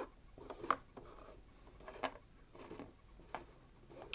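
Light plastic clicks and knocks from handling a toy tugboat's crane arm, about five sharp clicks spaced irregularly a second or so apart, with faint rustling between them.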